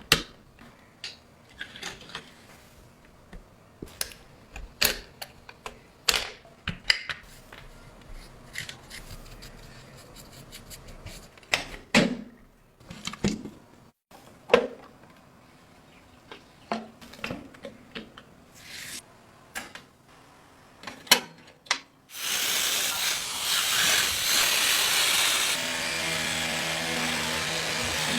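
Small tools and hands working on a die-cast model car, with scattered clicks, taps and knocks of small metal parts. About 22 seconds in, a power tool starts suddenly and runs loud and steady; its tone changes a few seconds later, taking on a steady pitched hum.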